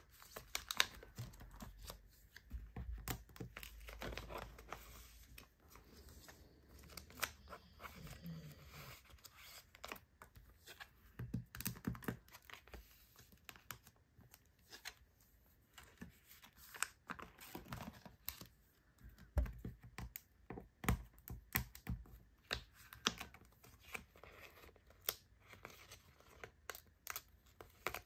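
Clear plastic binder pocket sleeves crinkling and rustling as photocards are slid in and pages are handled, with many small irregular clicks and scrapes of card against plastic.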